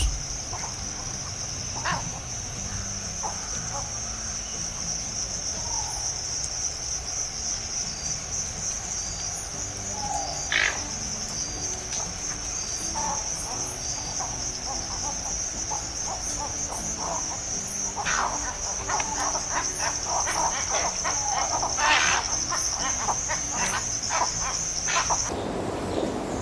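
Insects chirring in one steady, high-pitched drone that cuts off suddenly near the end. A few short, sharp sounds cut through it about ten, eighteen and twenty-two seconds in.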